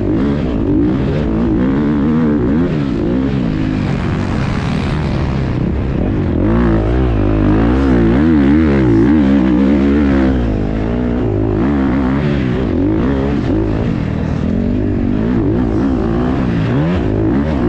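Motocross bike engine heard from the rider's position, revving up and falling back again and again as the throttle is opened and closed through the corners and straights of a dirt track.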